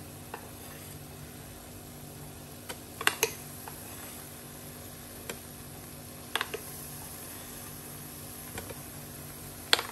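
Metal spoon clicking against a kadai now and then as spoonfuls of besan batter are dropped into hot frying oil, about seven sharp taps with the loudest near the end, over a steady low hum and hiss.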